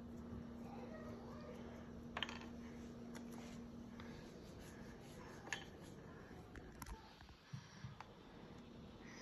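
Scattered faint taps and clicks of a baby's hands patting and picking at a plastic high-chair tray, over a low steady hum that stops about four seconds in.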